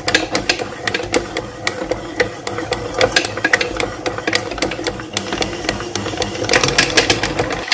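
Electric stand mixer running with a dough hook, kneading bread dough in a stainless steel bowl. A steady motor hum runs under rapid, irregular clicking and knocking.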